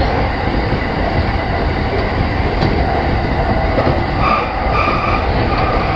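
Steady running noise heard inside a JR 209-500 series commuter train car in motion: a continuous rumble of the wheels on the rails and the running gear.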